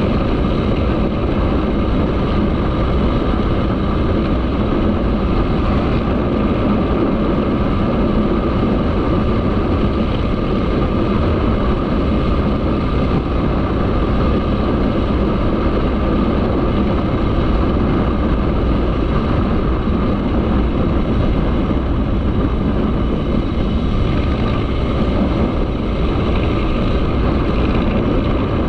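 Motorcycle engine running steadily under way, mixed with dense road and wind noise.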